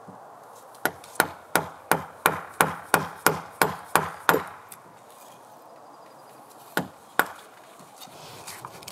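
Wooden mallet driving a chisel into a log's corner joint: a run of about eleven sharp blows, roughly three a second, then a pause and two more blows near the end. The chisel is trimming a corner joint that wasn't straight, so the log did not fit.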